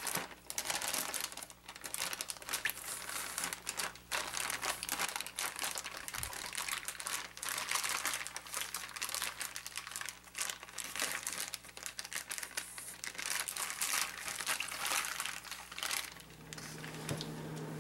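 A plastic zipper storage bag filled with brine crinkling continuously as hands press it down and work the seal shut. A low steady hum comes in near the end.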